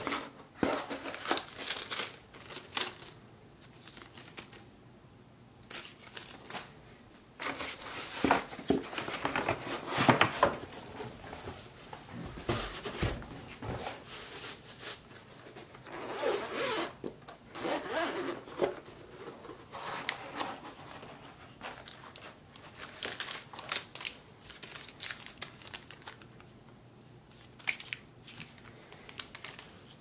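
Handling noises as a keyboard is unpacked: a cardboard box and a zippered carry case being opened and moved, with rustling, scraping and light knocks in irregular bursts and quiet gaps between them.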